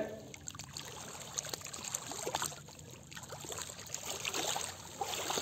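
Faint lapping and trickling of lake water against a rocky shore, with small scattered clicks and taps.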